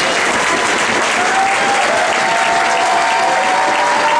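Crowd applauding, a steady dense clapping, with a few long high tones over it from about a second in.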